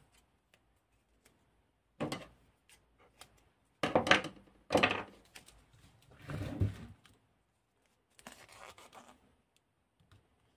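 Black electrical tape being pulled off its roll and pressed around a pack of 18650 lithium-ion cells. The tape gives a few short ripping and rubbing rasps, with handling knocks on the pack, the loudest about four to five seconds in.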